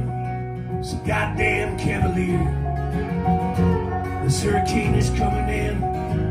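Live acoustic band playing an instrumental passage of a country song: strummed acoustic guitar with bowed fiddle holding long notes over it.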